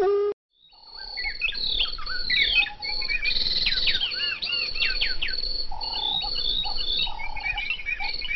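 Many small birds chirping and twittering over one another, a busy bird-chorus ambience that fades in about a second in after a short silence.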